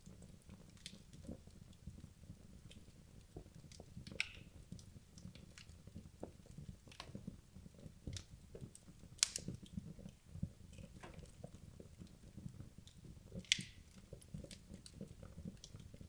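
Wood logs burning in a fireplace, crackling irregularly with sharp pops over a low steady rumble of the fire. The loudest pops come about nine seconds in and again near thirteen and a half seconds.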